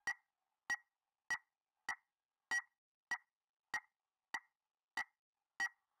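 Ticking sound effect: ten short, sharp ticks at an even pace, about one every 0.6 seconds.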